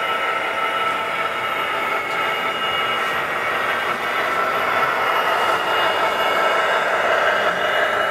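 DCC sound-fitted model Class 66 diesel locomotive passing close, its onboard speaker playing the recorded engine sound of a Class 66, with the model wagons rolling along the track behind it. The sound is steady and grows a little louder midway.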